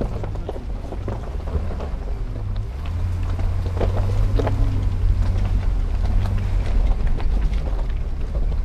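Car engine running at low speed with a steady low drone, a little louder from about three seconds in, over the crunch and knocks of tyres rolling on a rough gravel track.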